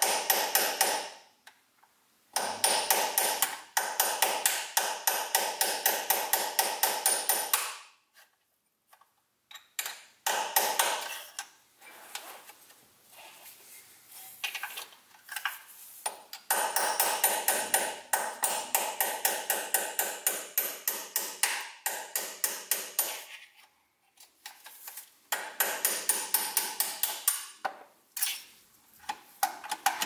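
Hammer tapping a punch to drive out the dowel pins that hold the selector shaft in a GM 5L40E automatic transmission case. The taps are rapid ringing metallic strikes, about five a second, coming in several runs of a few seconds each with short pauses between.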